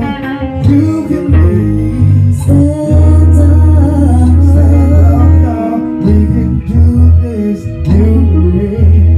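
A man singing into a microphone over a recorded backing track with a deep bass line, drum hits and guitar.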